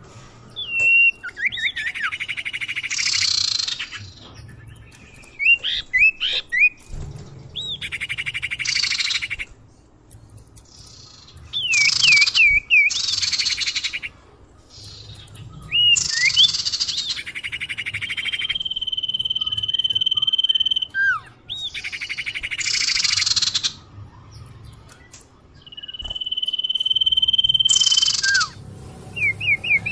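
Common iora (cipoh, also called sirtu or sirdum) calls played as a bird-lure recording. Phrases of quick sweeping chirps, buzzy rattling trills and long steady whistles repeat every few seconds.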